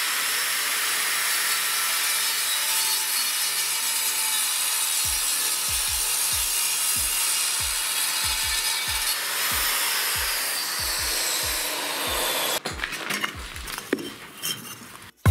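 Angle grinder cutting an angle piece in half, a steady high hiss that runs for about twelve seconds and then stops, followed by a few quiet knocks.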